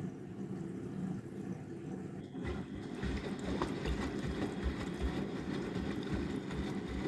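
Washing machine running: a steady hum, then from about two and a half seconds in louder sloshing of water in the turning drum with low, irregular thuds.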